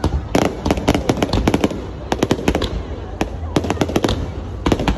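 Aerial fireworks going off in a display: many sharp bangs in quick, irregular succession, several a second, over a steady low rumble.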